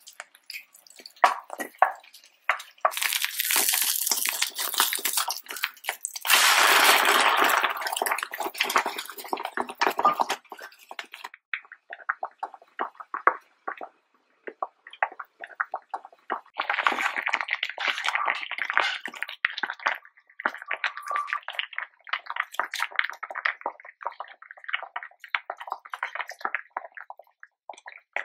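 An egg omelette sizzling in a frying pan, with two loud stretches of hiss a few seconds in. From about ten seconds in, a pot of Thai mixed-vegetable soup bubbles at a rolling boil with a dense run of small pops and crackles.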